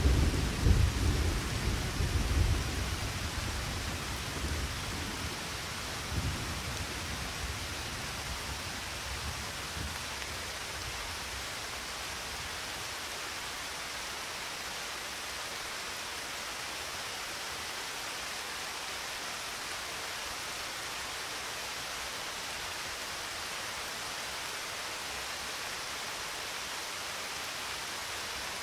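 Thunder rumbling and dying away over the first few seconds, with fainter rolls later on, over a steady hiss of rain.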